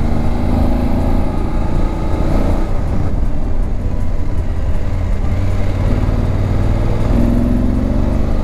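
BMW adventure motorcycle's engine running at road speed, heard from the rider's seat, over a steady rush of air noise. The engine note drops as the bike eases off for a bend and rises again near the end as it pulls away.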